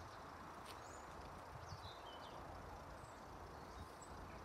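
Faint outdoor background noise with a low rumble, and a few short high bird chirps scattered through.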